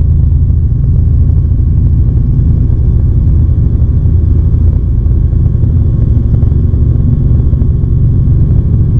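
Robinson R44 helicopter in flight, heard from inside the cabin: a steady, loud drone from its six-cylinder Lycoming piston engine and main rotor.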